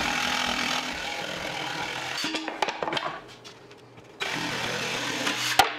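Cordless jigsaw cutting through half-inch plywood, the blade running steadily through the wood. The cut stops about two and a half seconds in and starts again after about four seconds, then cuts off with a click near the end.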